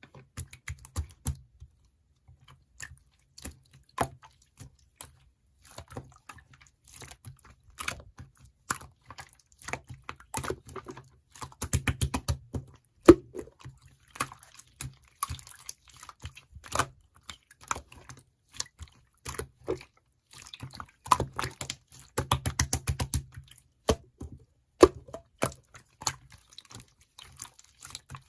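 Rapid small clicks and wet crackles close to the microphone, coming in irregular runs with short pauses; the busiest stretches are around the middle and about three quarters of the way through.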